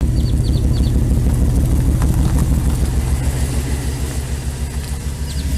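Supercharged Ford Lightning pickup's V8 idling, a steady low rumble with an uneven pulse.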